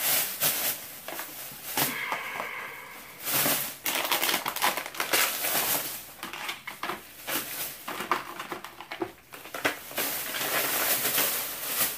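Plastic shopping bag and packaging rustling and crinkling in irregular bursts as hands rummage through them.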